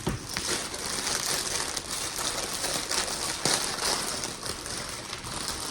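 Plastic bags of Lego pieces being opened and handled: continuous crinkling of the thin plastic with small clicks of the pieces inside.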